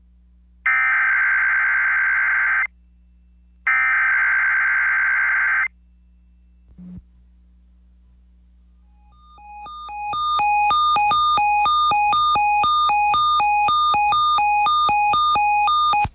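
Emergency Alert System SAME header: the warbling digital data tones sent in roughly two-second bursts, each followed by a second of silence, with the third burst ending around the middle. After a short click, a fast repeating electronic beep pattern at several pitches fades in, runs steadily and cuts off abruptly at the end.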